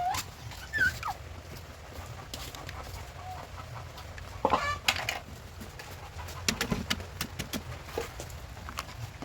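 A few short animal calls at intervals, one about a second in and a longer one about halfway, with scattered sharp clicks and a low steady hum underneath.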